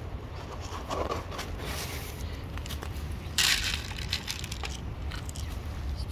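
Dry cat kibble poured from a plastic cup into a terracotta saucer: a short rattling clatter of pellets about halfway through, with smaller clicks and rustles around it.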